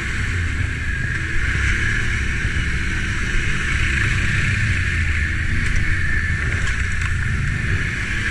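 Can-Am ATV's engine running steadily at low trail speed, with a continuous hiss over it and a few light knocks as it rolls over the rough, muddy track.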